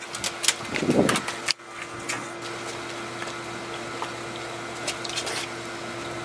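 A steady mechanical hum, like a fan or pump motor, runs throughout. In the first second and a half a dog knocks and splashes about in a plastic paddling pool with little water left in it, and a few lighter clicks come about five seconds in.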